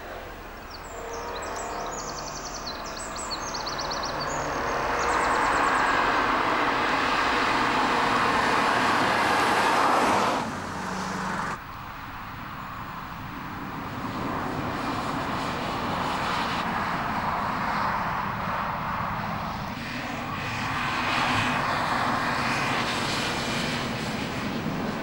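BMW Z4 M Coupé's 3.2-litre straight-six engine and tyre noise as the car drives by at speed. It grows louder over the first several seconds and cuts off suddenly about ten seconds in, then builds again.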